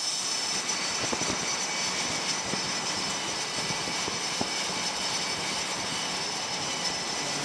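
F/A-18 Hornet jet engines running on a carrier flight deck: a steady high whine of several held tones over a constant rushing roar.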